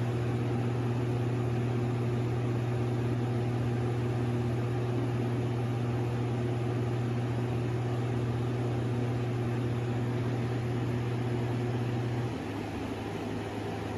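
Air conditioner unit running: a steady low hum over even fan noise, with the hum dropping away about twelve seconds in. The owner takes the noise for something trying to activate inside, maybe the unit being low on Freon.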